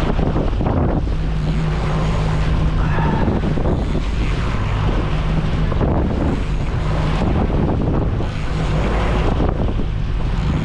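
A boat's engine running steadily at trolling speed, with wind buffeting the microphone in gusts.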